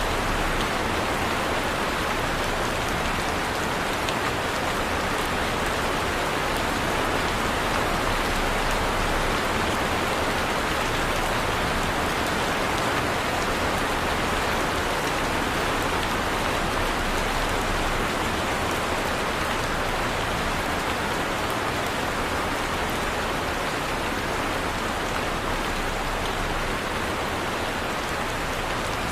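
Heavy rain falling steadily, an even hiss of drops on surfaces that holds the same level throughout.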